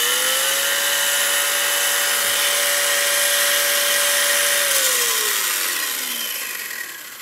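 Brushless motor and drivetrain of a 1/14-scale Jetwood RC truggy spinning its wheels at full throttle, with the throttle limit stuck at 70%. It gives a steady high whine that holds for about four and a half seconds, then falls in pitch and fades as the wheels coast down.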